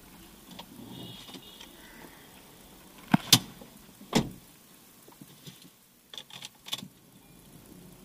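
Honda City's driver door shutting with a loud double thump about three seconds in, then a softer knock and a few small clicks as someone settles into the driver's seat.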